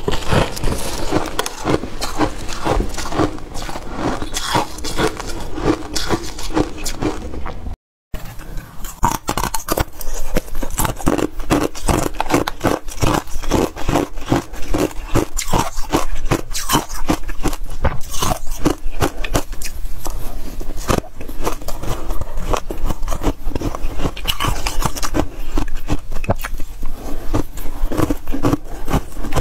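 Freezer frost crunching as it is bitten and chewed close up, a dense run of rapid crunches and scrapes. There is a short break of total silence about eight seconds in.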